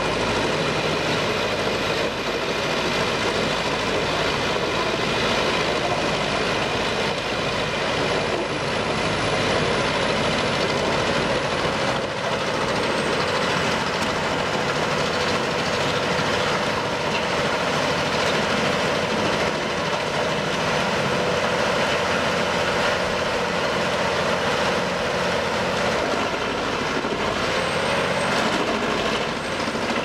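Large wood chipper running steadily: engine and chipping noise in one continuous, dense din, with a faint high whine that drops in pitch around the middle.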